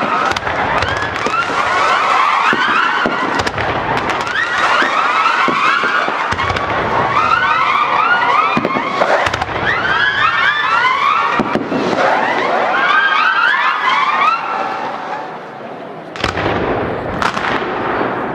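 Aerial fireworks display: many whistling fireworks shrieking at once, their pitches gliding and overlapping. Near the end the whistles fade and a few sharp bangs go off.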